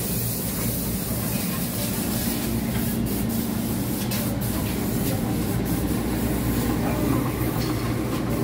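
Busy street-market ambience: a steady low rumble and hiss with scattered sharp clicks and knocks.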